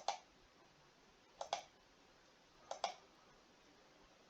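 Computer mouse clicking, three quick double clicks about a second and a half apart.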